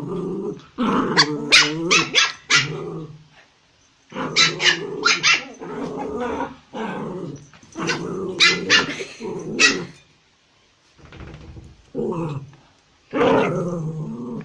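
Puppy barking and growling in runs of quick, sharp barks, with short pauses between the runs.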